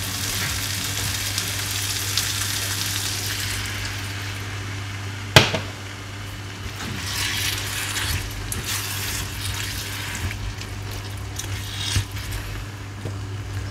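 Prawn masala sizzling hard in a hot frying pan as water is poured into it, over a steady low hum. There is one sharp knock about five seconds in, and the pan is stirred with a wooden spatula near the end.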